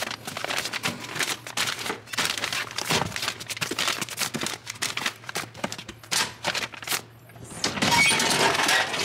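Padded mailers and plastic mailer packages rustling, sliding and knocking into the steel hopper of a post office parcel drop box, a quick clatter of handling sounds. Near the end the hopper is pulled shut by its handle, with a longer rush of metal noise.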